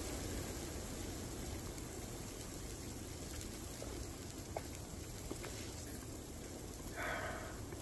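Steady low rushing noise of the blizzard against the tent, with a few faint ticks and a brief louder sound near the end.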